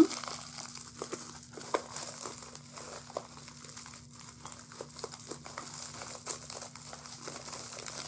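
Plastic bubble wrap crinkling and rustling as it is handled and unwrapped, with scattered small crackles, over a faint steady hum.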